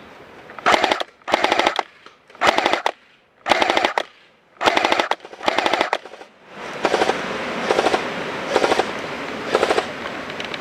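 Airsoft electric guns firing full-auto: about ten short bursts of rapid clicking shots. The last few bursts are a little weaker and sit over a steady hiss.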